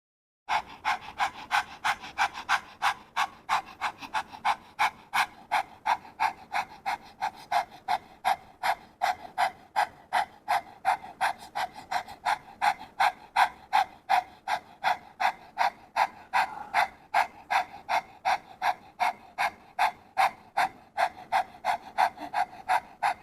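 A woman doing dog-breathing pranayama: rapid, even panting with the tongue stretched out, about three sharp exhales a second driven from the abdomen, starting about half a second in.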